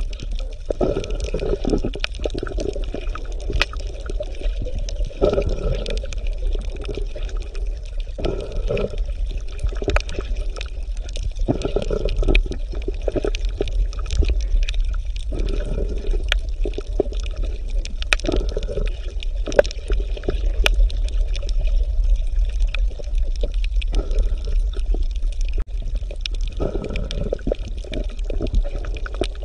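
Underwater water sound: a steady deep rumble with bubbling, gurgling surges every few seconds and scattered faint clicks.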